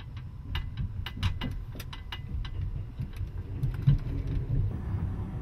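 Running noise inside a moving Twilight Express sleeper train: a steady low rumble with a run of sharp, irregular clicks in the first couple of seconds, and another train passing close alongside about four seconds in.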